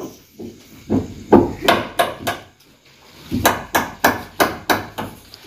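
A rapid series of sharp knocks or blows, about three a second, in two runs with a pause of about a second near the middle.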